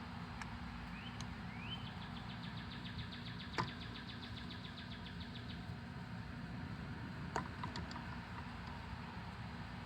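Steady low outdoor rumble with a bird singing: two short rising notes, then a rapid high trill of about eight notes a second lasting several seconds. Two sharp clicks stand out, about three and a half and seven and a half seconds in.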